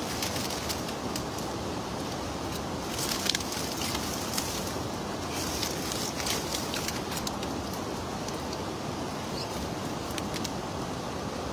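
Wet nylon cast net being handled with fish caught in it, giving bursts of crackling and clicking, loudest about three seconds in and again around five to seven seconds, over a steady outdoor rush of wind and river noise.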